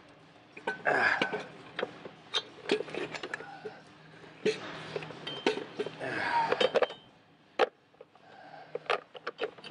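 Irregular metal clinks and knocks as a replacement turbocharger and exhaust manifold assembly is manoeuvred into a cramped engine bay, the metal housing bumping against surrounding engine parts.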